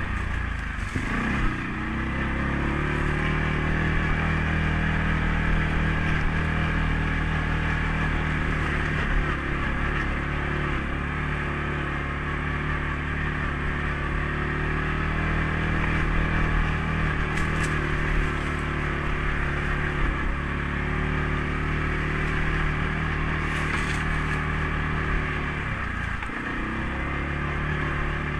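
CFMOTO CForce 500S ATV's single-cylinder engine running steadily under way on a trail. The engine note dips and climbs back twice, about a second in and again near the end, as the throttle is let off and opened again.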